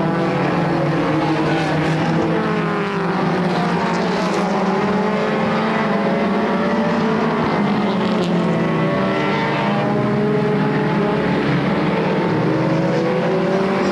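A field of four-cylinder mini stock race cars running on a short oval track, several engines heard at once. Their pitch rises and falls continually as the cars accelerate and ease off through the turns.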